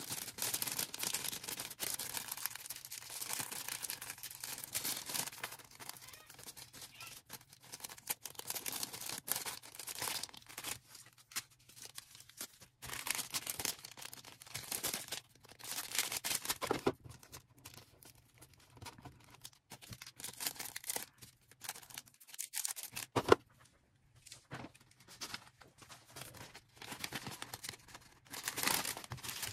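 Packing materials handled by hand: irregular rustling, crinkling and tearing of plastic packaging. A single sharp click about two-thirds of the way through is the loudest sound.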